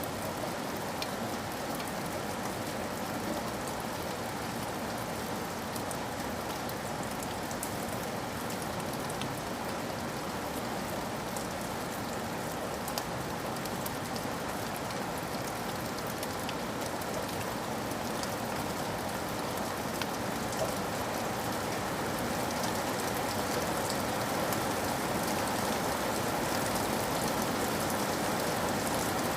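Steady rain falling on a surface, with scattered individual drop ticks; it grows slightly louder near the end.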